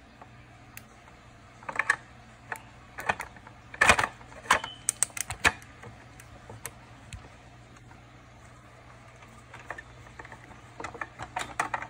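Irregular clicks and taps of a screwdriver taking out two screws and handling small parts inside a refrigerator, in scattered clusters, over a steady low hum.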